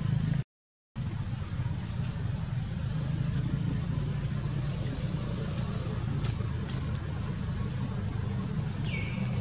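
Steady low rumble of background noise, cutting out completely for about half a second near the start. Near the end comes one short, high squeak that falls in pitch.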